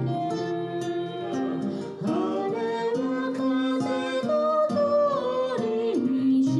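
A man singing to his own acoustic guitar accompaniment; the guitar chords ring alone at first and his voice comes in about two seconds in.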